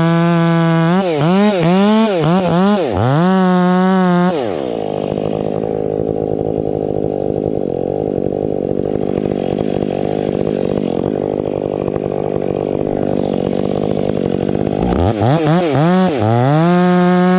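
Ported Stihl 500i two-stroke chainsaw held at full throttle, its revs dipping and climbing a few times before it drops to idle about four seconds in. After about ten seconds of idling it is revved back up to full throttle near the end.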